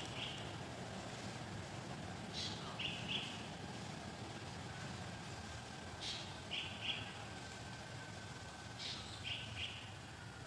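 A bird calling three times, about every three seconds: each call is a quick high falling note followed by two short notes, over steady outdoor background noise.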